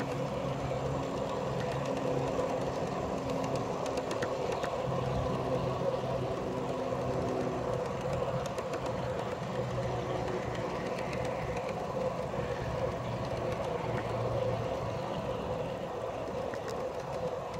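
Garden-scale train rolling along its track, heard from one of its own cars: a steady rolling rumble of wheels on rail with occasional faint clicks.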